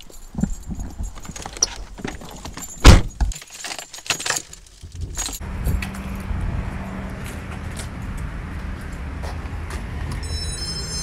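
Car keys jingling and clicking around an open car door, then a heavy thud about three seconds in as the car door is shut. From about halfway on, a steady low outdoor rumble, with a brief cluster of high steady tones near the end.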